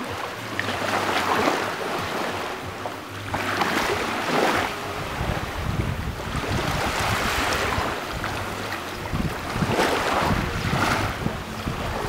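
Small waves breaking and washing up a pebble beach, a surge of surf about every three seconds, four in all, over a steady low wind rumble.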